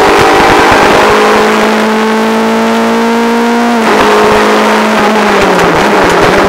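Renault Clio R3 rally car's 2.0-litre four-cylinder engine under hard acceleration, heard from inside the cabin: the revs climb steadily for nearly four seconds, drop sharply at an upshift, then hold and ease slightly lower.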